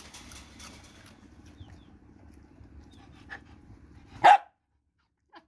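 A dog barks once, short and loud, about four seconds in, over faint low background noise.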